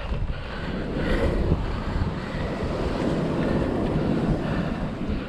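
Surf washing on the beach, a rushing noise that swells about a second in and eases off near the end, with wind rumbling on the microphone.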